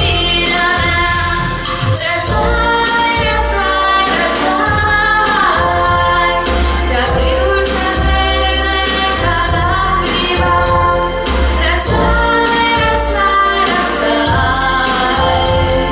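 A woman singing a slow song into a handheld microphone over instrumental accompaniment with a pulsing bass.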